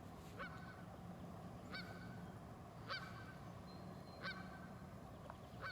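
Canada geese honking: five short, single honks spaced about a second and a half apart, faint and at an even pace.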